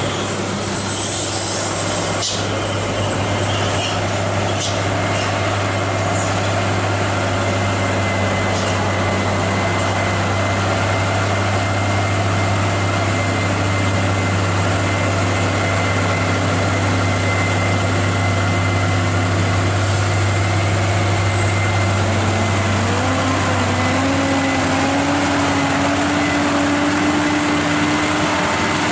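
Heavy diesel truck engine running steadily, its pitch rising a little over two seconds about 22 seconds in, with a few sharp clicks in the first several seconds.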